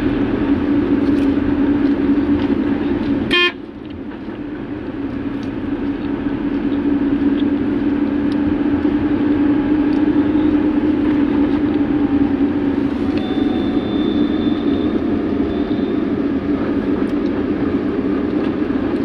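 Car engine and road noise heard from inside the cabin, a steady drone while driving. A car horn toots briefly about three and a half seconds in; right after it the noise dips, then builds back up over several seconds.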